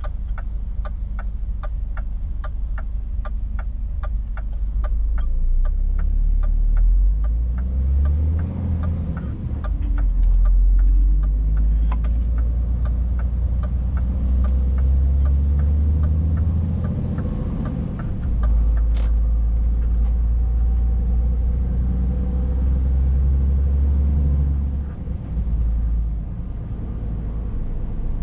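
Scania S460's 13-litre inline-six diesel heard from inside the cab, first idling, then pulling away about seven seconds in and running up through the gears, with brief dips in its drone at each shift. Over the first dozen seconds the turn-signal indicator ticks steadily, about two to three a second, then stops as the turn is made.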